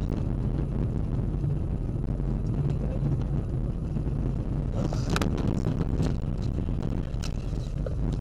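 Car interior noise as picked up by a dashcam: a steady low rumble of engine and tyres on a snowy road. A few sharp knocks and a brief hiss come about five seconds in, and a louder knock lands near the end as the car swings toward the roadside snow.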